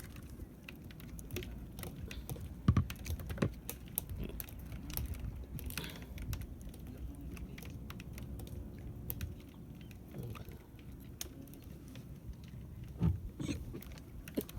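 Irregular light clicks and taps, with a few louder knocks, over a low steady rumble.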